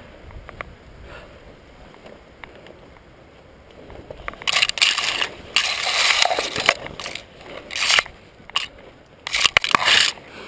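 Close crunching and scraping noise in several loud bursts, starting about four and a half seconds in after a few faint clicks.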